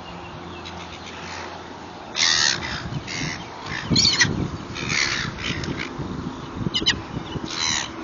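Silver gulls calling in harsh squawks, a flock gathering to be fed. After about two seconds of quiet, six short bursts of calls follow, the loudest soon after they begin and again midway, with a quick stuttering call near the end.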